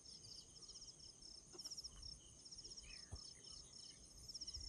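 Faint insect chorus, crickets or similar, made of short high pulsing trills repeating about twice a second over a steady high hum.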